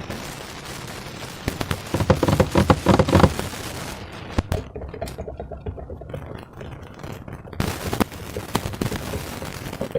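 Slime being squished and worked by hand, a dense crackling of small wet pops and clicks as trapped air bubbles burst, loudest about two to three seconds in.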